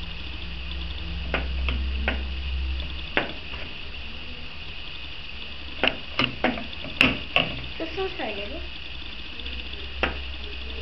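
Scattered light clicks and knocks of a small plastic toy globe being handled and turned on its stand, coming in a quick cluster about six to seven seconds in.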